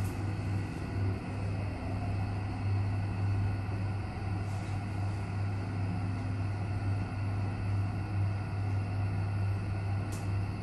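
Steady low hum inside a closed passenger lift car as it rides, with faint steady higher tones over it and a couple of faint ticks near the end.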